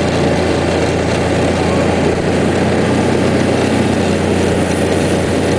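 Engine of a small vehicle towing a loaded canoe over snow, running steadily as a low drone with an even hiss over it.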